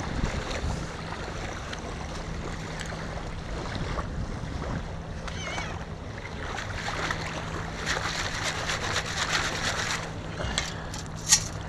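Small waves washing over wet sand while a long-handled stainless-steel sand scoop digs in and is then shaken in the shallow water, the water swishing through its perforations for a couple of seconds near the end. A single sharp click just before the end.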